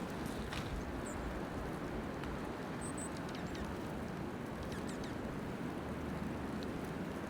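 Steady blizzard wind noise, with a few faint, high, short bird chips about a second in and again around three seconds in.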